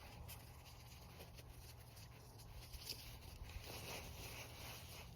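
Faint rustling of a ratchet strap's webbing being fed through the ratchet's slot, with a couple of light clicks near the middle.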